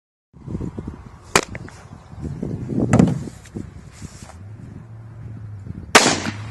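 Three sharp bangs over rough background noise: one about a second in, one about halfway, and the loudest near the end. A low steady hum comes in about two-thirds of the way through.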